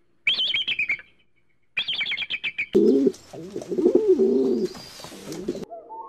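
An eagle's rapid, high chattering call, heard in two bursts. Then, from about the middle, a different bird makes low, wavering calls that stop abruptly near the end.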